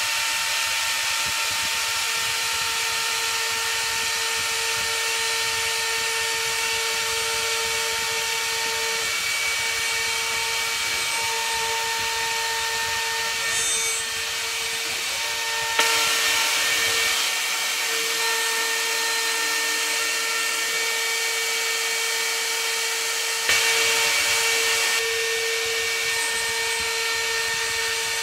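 CNC router spindle running a ball-nose bit on a finishing pass through seasoned mahogany: a steady high whine over a hiss of cutting. The cutting swells louder twice for a second or two in the second half.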